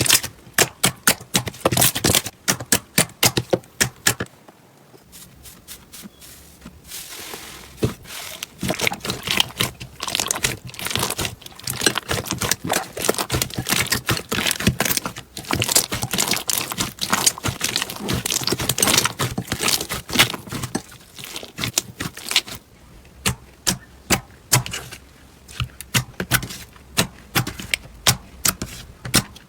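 Slime being squeezed and poked by hand, giving rapid runs of crackling clicks and pops, with quieter pauses about four seconds in and again near the end.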